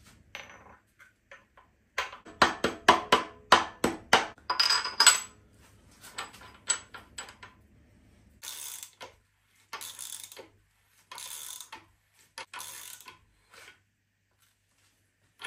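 A hand ratchet wrench clicking in several short bursts as it spins the crank hub bolt down on a BMW S38B36 engine, after a quick run of sharp metallic clinks and knocks from the hub and bolt being fitted.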